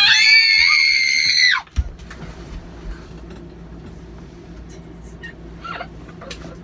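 A loud, high-pitched scream held for about two seconds, with a second voice rising in pitch beneath it, that cuts off suddenly; after it only a low steady hum remains.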